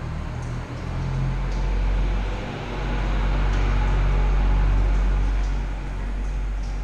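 Milking-parlour machinery running: a steady low mechanical rumble and hum that dips briefly about two and a half seconds in, with a few faint clicks.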